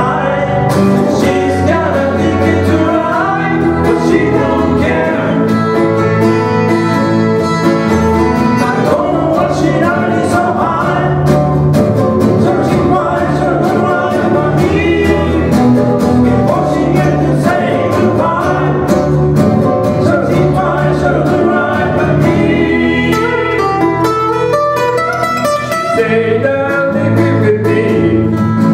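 Small live band playing a song on strummed acoustic guitars with a man singing.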